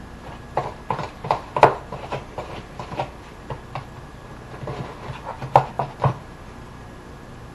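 A spoon knocking and scraping against a small container as minced garlic is mixed into powdered seasoning: a run of irregular clicks and taps, loudest about a second and a half in and again between five and six seconds in.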